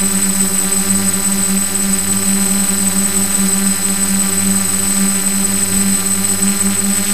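DJI F550 hexacopter's brushless motors idling after arming, props turning slowly: a steady electric hum with a thin high whine.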